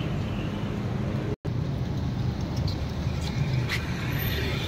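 Steady low rumble of outdoor street ambience with road traffic, broken by a momentary drop-out about a second and a half in; a few faint clicks in the second half.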